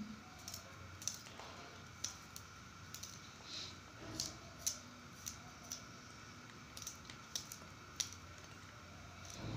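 Small knife cutting a garlic clove held in the hand: faint, sharp clicks at irregular spacing, about two a second, as the blade snicks through the clove.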